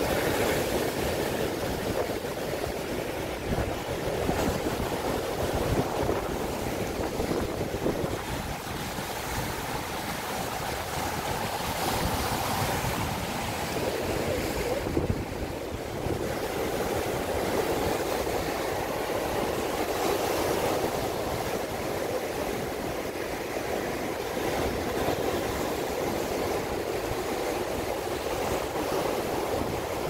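Sea waves breaking over a rocky shore and surf churning between the rocks: a continuous rushing wash that swells and eases with each surge.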